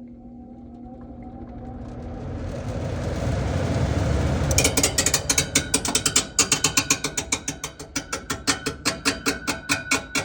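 Furnace blower coming up to speed with a rising rush of air, then, about four and a half seconds in, a loud, rapid, rhythmic knocking and screeching from the blower wheel, about five strikes a second. The sound points to something stuck in the blower or an out-of-balance blower wheel, as the technician suspects.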